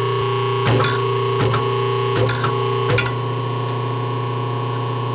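Metal lathe running slowly with a steady motor and gear hum, spinning an unbalanced power-steering assembly in its four-jaw chuck. Several short clicks and knocks come in the first three seconds, after which the hum drops a little as the lathe is slowed down.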